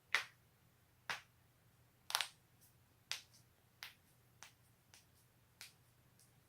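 Neck joints cracking: a run of about nine sharp pops, roughly one every second or less. The loudest come near the start and the later ones are fainter.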